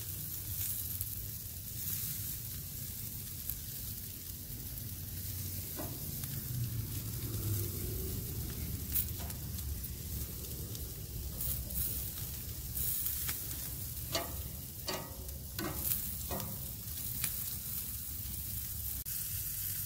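Marinated chicken gizzards and sausages sizzling on a hot barbecue grill grate, a steady hiss over a low rumble. About two-thirds of the way through, metal tongs click against the grate several times.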